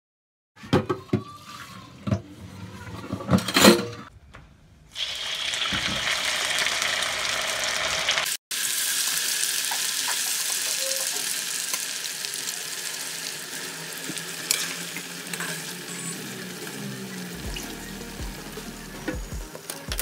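Soaked mukund vadi squeezed by hand in a steel bowl of water: splashes and drips. About five seconds in this gives way to the steady sizzle of the vadi pieces deep-frying in hot oil in a kadai.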